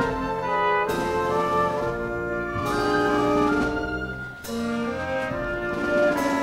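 Pit orchestra playing accompaniment music for a silent comedy scene, brass to the fore, with a brief break in the music about four seconds in.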